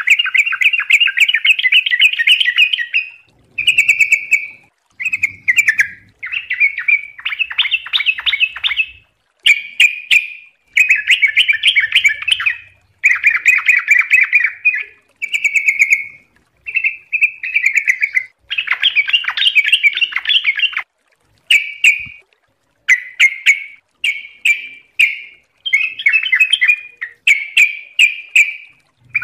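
Yellow-vented bulbul (trucukan) singing in a cage: bubbly, warbling phrases of one to three seconds each, repeated with short pauses between them.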